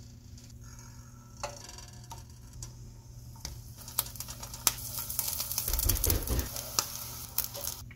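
Butter sizzling in a nonstick skillet, faint at first, then louder and crackling with many small pops as two brown-rice and oyster-mushroom-mycelium patties fry in it. A couple of low bumps come about three quarters of the way in.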